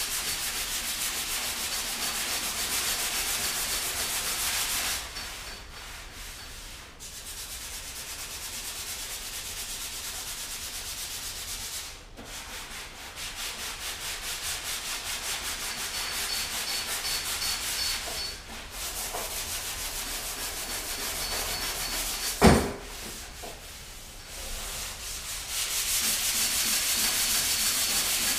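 Hand sanding a Land Rover bonnet with coarse 60-grit abrasive, rapid scratchy back-and-forth strokes roughing up the panel as a key for body filler. The strokes pause briefly a few times, and a single sharp knock about twenty-two seconds in is the loudest sound.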